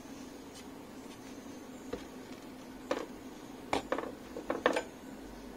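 Light clicks and taps of a hand-soldering job on a circuit board: a couple of single clicks, then a quick cluster of taps about four seconds in, over a faint steady low hum.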